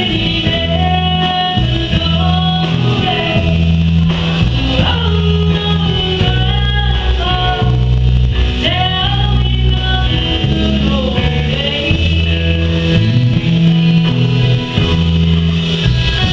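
A woman singing a slow country-style song into a microphone over amplified accompaniment, with a bass line stepping from note to note beneath the voice.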